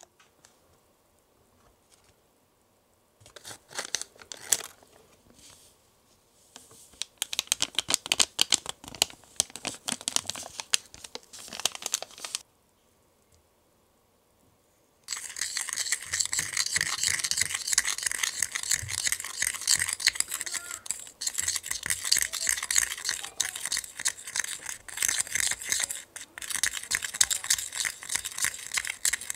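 Small plastic spatula scraping and stirring powdered candy mix in a small plastic bowl: a fast, continuous scratching through the second half. Earlier come bouts of rustling and crinkling, then a short quiet pause.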